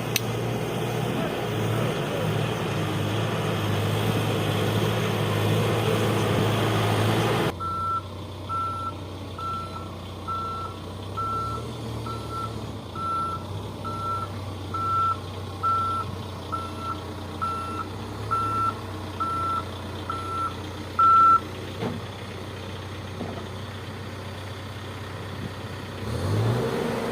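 Heavy construction machine's engine running, changing abruptly about a quarter of the way in; then a reversing alarm beeps about once a second, some fifteen times, over the engine, signalling the machine is backing up.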